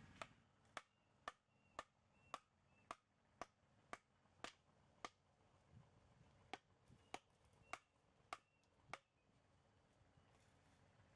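A bamboo mallet knocking on the tops of split-bamboo slats, driving them into the soil: about fifteen sharp knocks at roughly two a second, each with a brief high ring, with one short pause midway.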